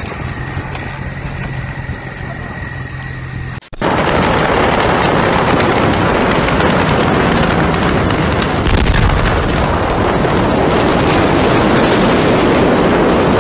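A steady, vehicle-like hum with a thin high tone for the first few seconds. Then, after a sudden cut, a burning building gives off loud, continuous crackling made of many rapid pops, like a fusillade.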